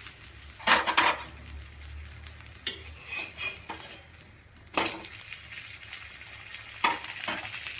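Potato tikki sizzling in a little oil on a hot iron tawa, browning over a low flame. A steel spatula scrapes and knocks against the tawa four times as it lifts and turns the patty.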